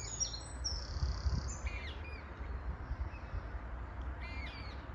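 Small birds singing: a quick run of high whistled phrases in the first two seconds and another short phrase near the end, over a steady low rumble.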